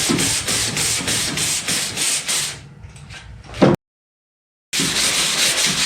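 Sandpaper rubbed back and forth by hand in a steady rhythm of about three to four strokes a second. The strokes stop about two and a half seconds in, there is one short thump, then a second of complete silence before the rhythmic sanding starts again.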